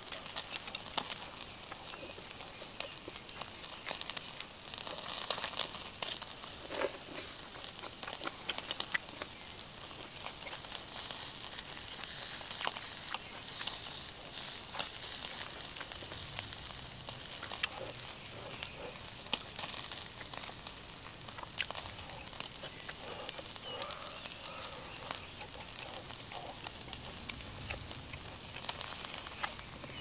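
Beef sizzling on a charcoal grill: a steady hiss with many small pops and crackles.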